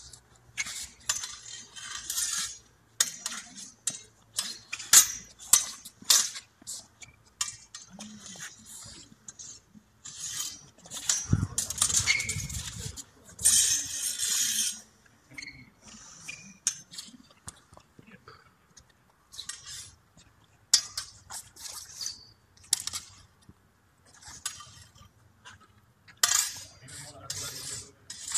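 Heavy steel training sabres clashing in irregular flurries of sharp metallic clinks and scrapes, blade on blade, with a louder stretch of noise between about eleven and fifteen seconds in.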